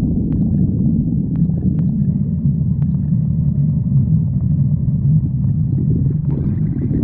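Hungry stomach growling: a continuous low, deep rumble of the gut, with a few faint ticks in the first few seconds.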